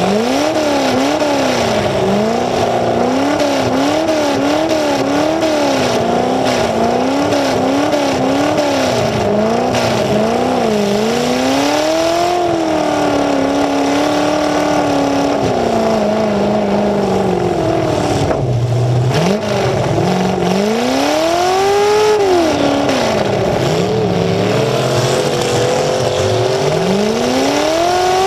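Demolition derby car's engine running loud through upright open exhaust pipes, its throttle blipped rapidly about twice a second for the first third, then held steady. Near two-thirds through it drops low, then revs up hard in long rises twice toward the end.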